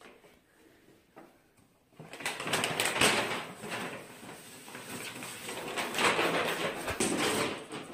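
A paper shopping bag rustling and scraping as a cat tangles with it, starting about two seconds in and going on as an uneven crackle.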